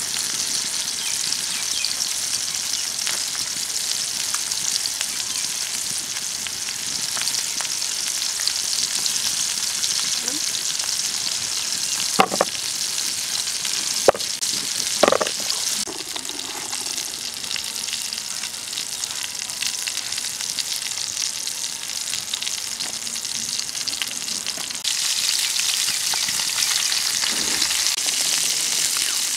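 Squash being cut on a boti, a curved blade: three sharp knocks in the middle over a steady hiss. Near the end the hiss grows louder as water is poured from a jug onto the cut squash pieces in a plastic bowl.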